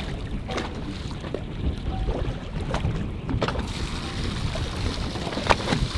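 Low rumbling wind and water noise around a small fishing boat on choppy sea, with a few sharp knocks and clicks, the clearest about five and a half seconds in.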